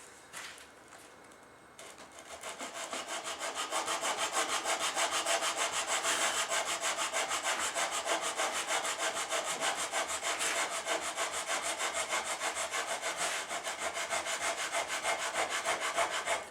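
Sandpaper wrapped around a dowel rubbing back and forth over the edge of a wooden pistol grip cap, shaping a curve into the bevel. Rapid, even strokes of about four or five a second, growing louder from about two seconds in.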